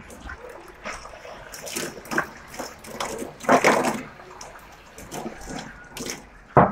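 Water from a hose splashing and sloshing in the water tank of a desert air cooler as it is washed out, in irregular bursts, with a sharp knock just before the end.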